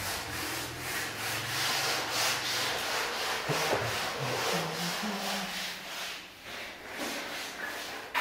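Paintbrush being scrubbed against a painted wall and door frame: repeated scratchy rubbing strokes, about two to three a second.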